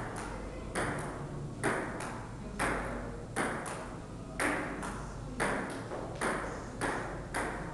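Table tennis ball clicking off rubber-faced paddles and bouncing on the table in a steady rally, the clicks coming in close pairs about once a second, each with a short ring after it.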